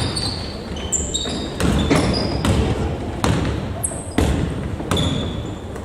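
Basketball game play in a gym: the ball bouncing on the court with sharp thuds every half second to a second, mixed with short high-pitched sneaker squeaks on the floor, all echoing in the hall.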